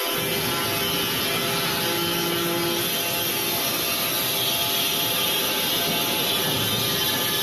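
Industrial band sawmill running: a steady mechanical din with a faint high whine that grows stronger about halfway through.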